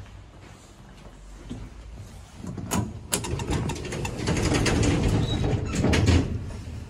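1970 Express elevator doors and machinery: sharp clicks about three seconds in, then a low mechanical rumble that builds through the second half, with more clicks and a heavy thud near the end as the doors close.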